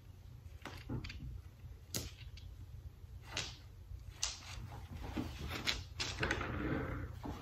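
Small sharp clicks about once a second with light rustling, as a small cloth drawstring pouch of crystals is handled and packed; the rustling is busiest near the end.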